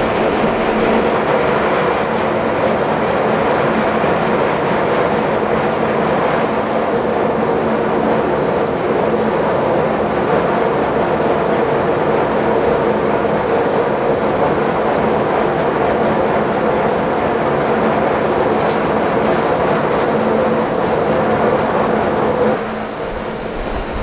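Grain-handling machinery running at a steady drone: the receiving pit and bucket elevator leg taking wheat unloaded from a gravity wagon, with the grain pouring out. The sound changes and drops a little near the end.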